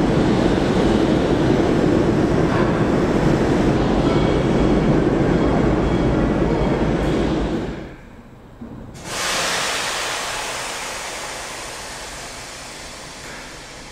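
Steady heavy rumble of a locomotive running in the shed, which falls away about eight seconds in. A second later a loud hiss starts suddenly and slowly fades.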